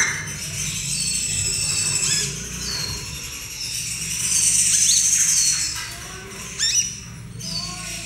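Young caged sunbird (kolibri ninja) practising its song: high, thin whistled notes with short falling ends, broken by quick rising chirps, a juvenile's unfinished learning song. A steady low hum runs underneath.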